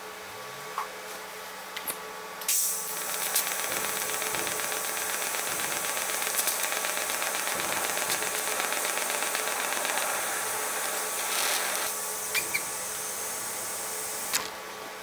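TIG welding arc hissing steadily for about twelve seconds. It starts sharply a couple of seconds in and cuts off near the end, fusing cast iron filler rod into a cast iron bracket.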